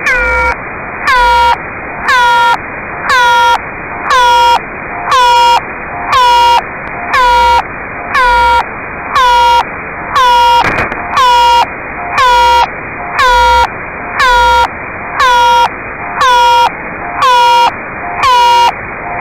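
Unidentified radio signal received on a software-defined radio: a harsh, buzzy tone pulsing on and off about once a second, each pulse dipping briefly in pitch as it starts, with receiver hiss between pulses.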